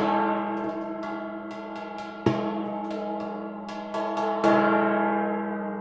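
Waterphone being struck: its bronze rods and steel resonator ring with many metallic tones and a long, shimmering decay. Fresh strikes come about two seconds in and, louder, about halfway through, with light taps in between, and the ringing fades near the end.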